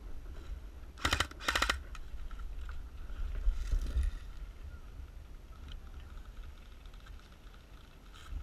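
Two short full-auto bursts from an airsoft electric rifle, each a quick run of clicks about a quarter second long and about half a second apart, over a steady low rumble.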